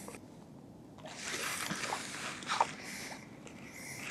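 Soft rustling and a few small handling clicks as an angler moves in a nylon down jacket and handles his rod and line.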